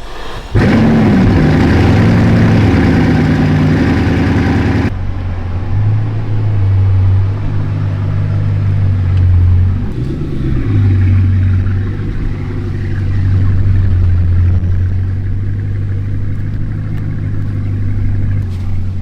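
A Bugatti's W16 engine starts up with a sudden loud flare about half a second in. After about five seconds it drops to a lower, steady run, with a few small rises and falls in pitch.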